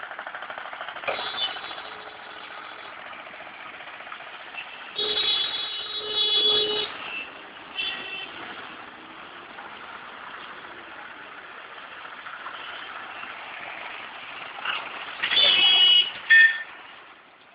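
Busy street traffic noise, with vehicle horns honking over it: a long honk about five to seven seconds in, a short one around eight seconds, and several loud honks near the end, the loudest sounds.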